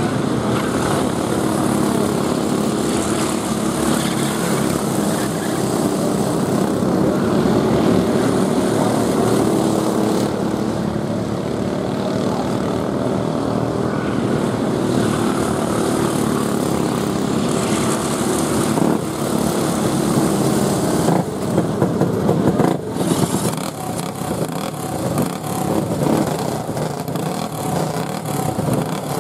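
Several dirt-track racing karts with 5 hp Briggs & Stratton flathead (Raptor) single-cylinder engines running around the oval, their overlapping engine notes rising and falling in pitch as they lap. The sound turns choppier, with a few sharp pops, in the last third.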